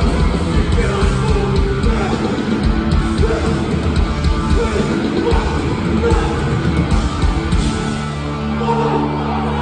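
Hardcore punk band playing live in a theatre: distorted guitars and pounding drums with shouted vocals, settling into a held, ringing chord near the end.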